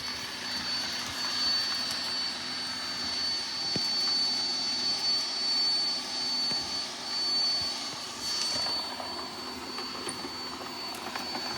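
Roomba robot vacuum running: a steady whir from its suction fan and brushes, with a thin high-pitched whine over it.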